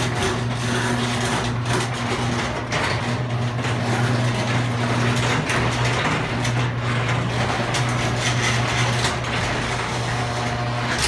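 Chamberlain AccessMaster garage door opener running as it drives the door closed: a steady motor hum under a busy rattle and creak from the door's rollers in the side tracks, which the owner takes for creaky rollers. It stops abruptly as the door reaches the bottom.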